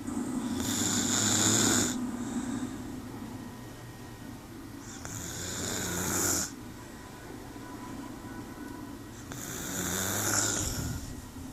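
A woman snoring in deep sleep: three long, loud snores, each about a second and a half, spaced roughly every four to five seconds, with quieter breathing between.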